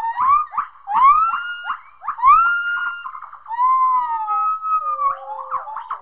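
Gibbons singing: a run of short rising whoops, then long drawn-out hoots that rise and level off, with a second voice overlapping on a lower, sliding note near the end.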